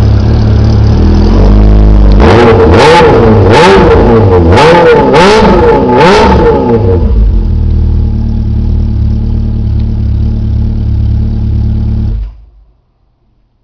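Suzuki GSX 750F inline-four motorcycle engine with a Sarachú aftermarket exhaust idling, then revved in about five quick throttle blips that rise and fall in pitch. It settles back to a steady idle and stops abruptly near the end.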